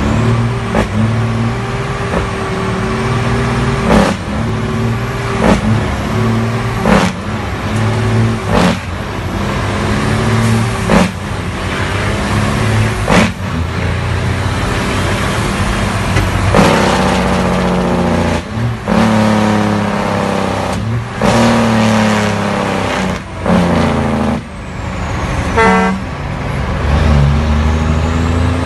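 Straight-piped Cummins diesel truck engine running under way, heard from inside the cab. Its pitch steps and rises as it pulls and eases off, with frequent sharp knocks throughout.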